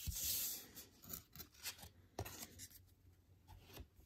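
Topps Gypsy Queen baseball cards being handled: a brief sliding, rubbing sound of card against card, then a few light taps as the cards are set down on the table.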